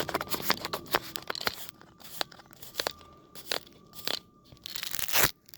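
Close handling noise: irregular sharp clicks, taps and rustles, with a longer loud scrape near the end, over a faint steady high tone.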